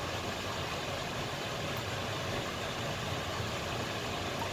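Pan of rice and black beans cooking in its liquid on the stove, giving a steady, even hiss.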